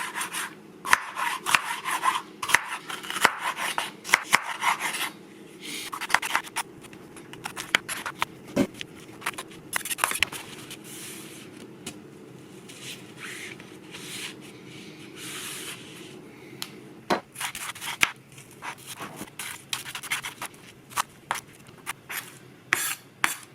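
Onions and bell peppers being cut with a knife: irregular knocks of the blade on the cutting board mixed with scraping and rubbing, over a steady low hum.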